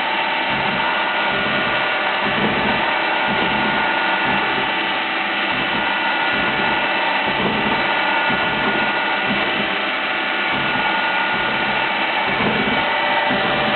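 Fadal CNC mill running steadily, a constant whine of several steady tones over an even mechanical noise.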